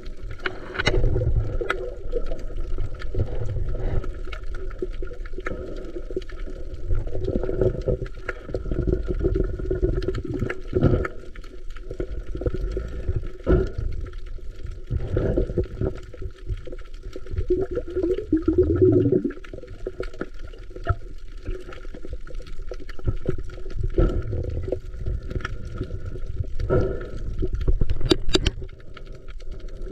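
Water sloshing and gurgling, muffled and irregular, with a few sharp knocks.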